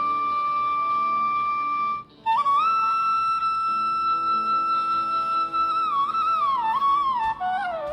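Background flute music: a long held note, a brief pause about two seconds in, then another long note that bends and slides down near the end, over soft lower accompanying notes.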